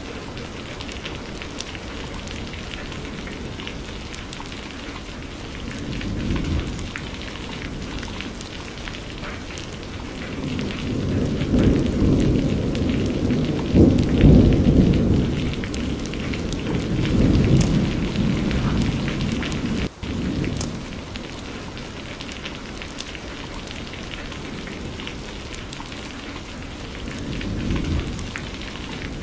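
Steady rain with fine pattering drops, under rolling thunder: a low rumble about six seconds in, a long, louder roll through the middle, and another rumble near the end.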